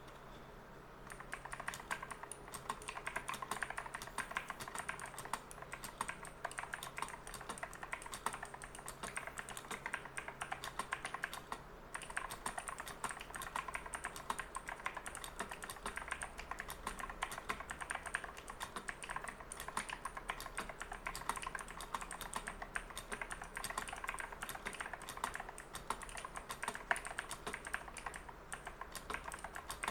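Stock Fuhlen SM680 mechanical keyboard with clicky Kailh Blue switches being typed on rapidly, a steady stream of sharp clicks, with a brief pause about twelve seconds in.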